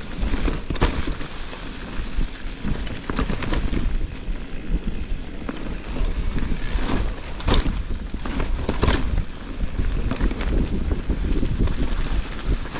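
Wind buffeting the microphone as an e-mountain bike is ridden, a steady deep rumble, with several sharp knocks and rattles from the bike scattered through it.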